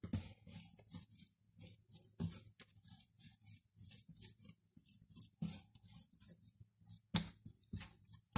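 Hands kneading soft yeast dough on a wooden tabletop: a faint, irregular run of soft pushing and slapping strokes, with a few louder thumps about 2, 5 and 7 seconds in.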